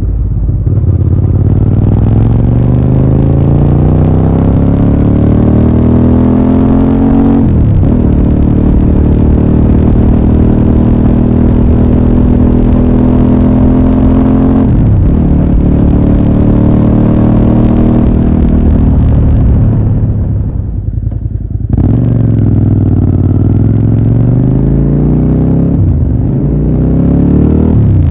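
Suzuki SV650A's V-twin engine and exhaust under way. The revs climb and drop back sharply at each upshift, twice in the first half, then fall away as the throttle closes, and climb again through one more shift near the end.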